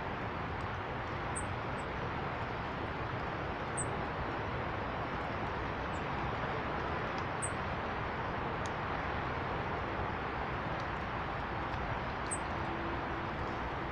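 Small birds at a feeder giving short, high chirps every few seconds over a steady background noise.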